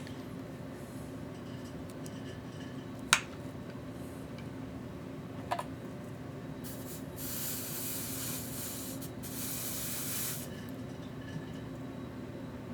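Hand work at a workbench on battery connectors and wires: three sharp clicks spread over the first six seconds, then a few seconds of rubbing, hissing noise. A steady low hum runs underneath.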